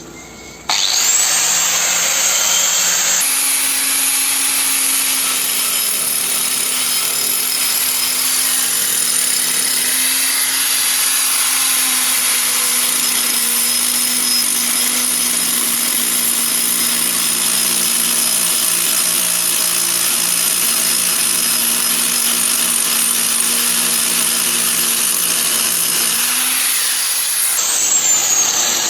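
Angle grinder spinning up about a second in, then grinding against a car's turning brake disc with a loud steady high-pitched hiss for over twenty seconds, and winding down near the end. The disc is being resurfaced to take off the wear that makes the wheel squeal.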